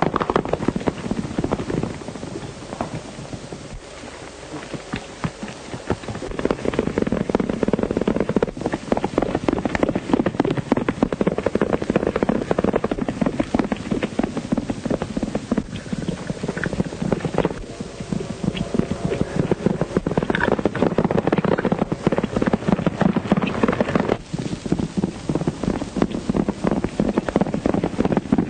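Horses galloping: a dense, rapid clatter of hoofbeats that grows louder about six seconds in.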